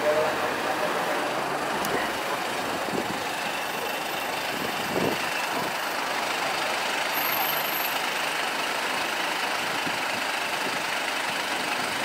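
Mercedes-Benz Sprinter 516 CDI minibus's diesel engine running as the bus pulls in, then idling steadily, over steady street noise.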